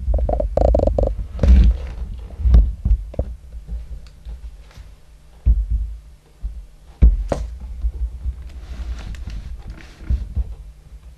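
Camera handling noise: irregular low thumps and rumbling bumps on the microphone as the camera is moved about, the heaviest near the start and again about seven seconds in.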